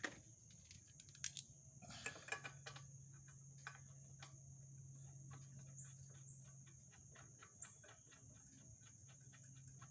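Faint, scattered metallic clicks and clinks of tools being handled while a spark plug is fitted to a small lawnmower engine, a few louder clinks close together between about one and two and a half seconds in.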